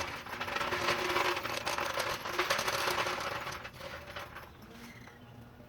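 Car jack being worked to lift one side of a car: a dense run of rapid mechanical ratcheting clicks that fades away about four seconds in.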